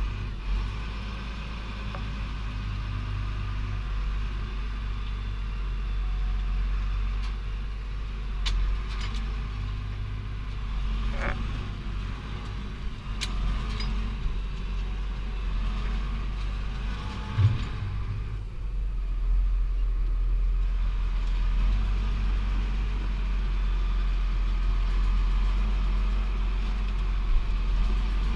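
Tractor engine running steadily with a low drone while towing a trailer loaded with precast concrete panels, heard from the driver's seat. A few short knocks and rattles come through, the loudest about 17 seconds in.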